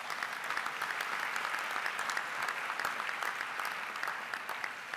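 Audience applauding, a steady patter of many hands that fades out near the end.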